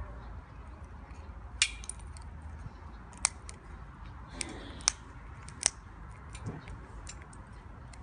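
White cockatoo's beak biting and cracking at a walnut shell: four sharp cracks over a few seconds among fainter small clicks of gnawing.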